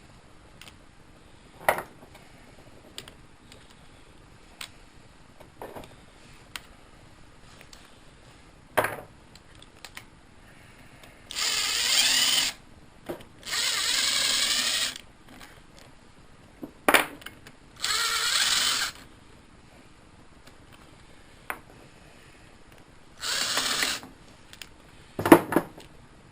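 Cordless impact wrench running in four short bursts of about a second each, spinning off fasteners. Sharp knocks of tools and parts come in between.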